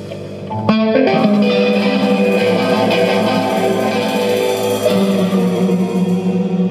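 Live band music: held chords, then a sharp guitar strike just under a second in that opens louder, ringing band chords which sustain through the rest.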